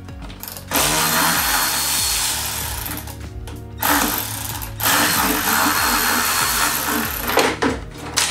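Cordless electric ratchet running in three runs, each one to two and a half seconds long, spinning out the last oil pan bolts.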